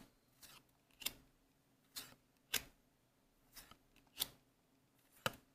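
Trading cards being handled and flipped one at a time: a series of about seven short, sharp clicks and snaps spaced unevenly, roughly every half second to a second.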